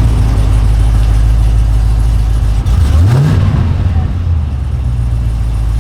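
V8 car engine idling steadily, with one short rev about three seconds in that rises and drops back to idle.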